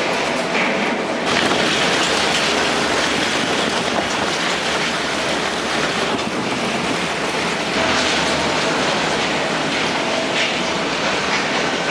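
Industrial waste shredder running under load, its cutters crushing and tearing mixed waste with a dense, steady noise of many small knocks and rattles.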